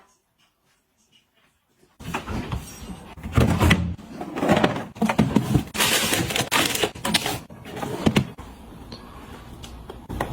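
Household items being handled and put away: irregular knocks, clicks and rustling that begin after about two seconds of near silence and are busiest in the middle.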